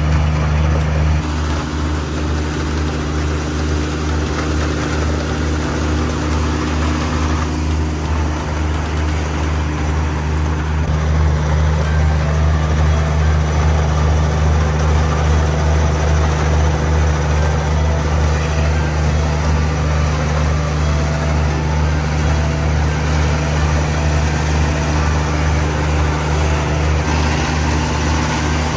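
Kubota KALWEY KR220 two-row combine harvester running steadily under load while it cuts and threshes rice, a continuous low engine drone with the hum of the machinery.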